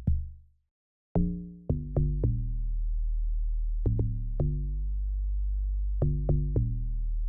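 Amapiano log drum pattern playing from FL Studio: groups of three or four deep, pitched hits with long low tails, over a steady low bass. Playback stops briefly and restarts about a second in.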